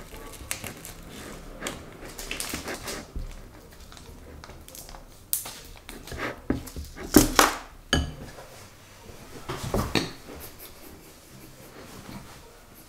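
A spoon stirring slime in a glass bowl, clinking and scraping against the glass in short, irregular bursts, with a small plastic bag crinkling.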